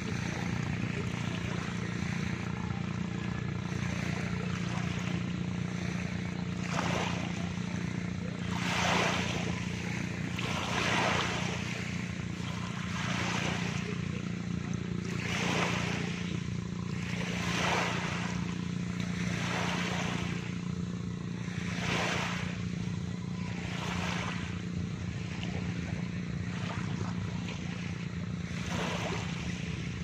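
Small waves lapping and washing onto a sandy, pebbly shore, a soft wash rising and falling about every two seconds. Under it runs a steady low engine-like drone.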